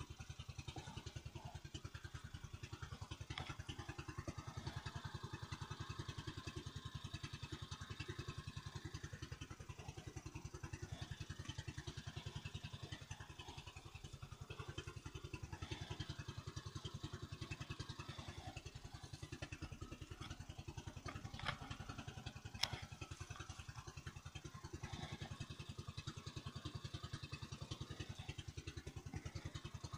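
Small fishing boat's engine running steadily with a fast, even chugging. Two sharp clicks stand out about two-thirds of the way through.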